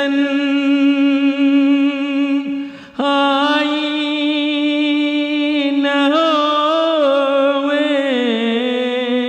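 Unaccompanied male voice chanting a marsiya, a mournful Urdu elegy, holding long drawn-out notes. A short breath break comes about three seconds in, and the pitch steps down near the end.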